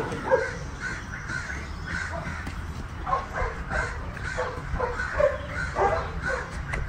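Crows cawing over and over, many short calls overlapping several times a second, over a steady low background rumble.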